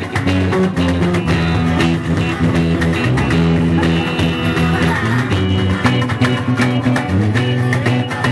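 Instrumental passage of a band's song: bass guitar and guitar playing over a steady drum beat, with no singing.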